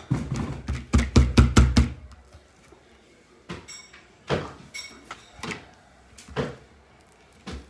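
Utensil knocking and clinking against a bowl while a runny homemade slime mixture is stirred: a quick run of knocks with dull thuds, then a few separate knocks, a couple of them ringing briefly.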